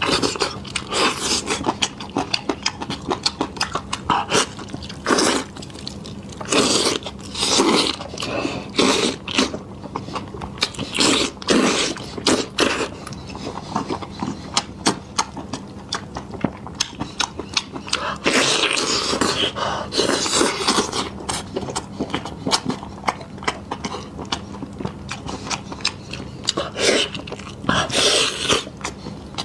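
Close-miked eating sounds: irregular bites, chewing and scraping clicks, with a longer, louder stretch a little after the middle. A faint steady hum runs underneath.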